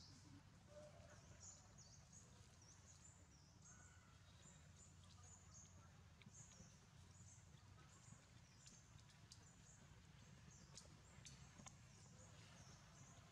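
Near silence: faint outdoor ambience with soft high chirps coming again and again, and a few light clicks.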